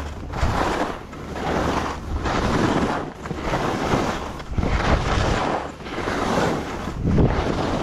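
Skis hissing and scraping through snow in a run of turns, the noise surging and easing about once a second, with wind buffeting the microphone.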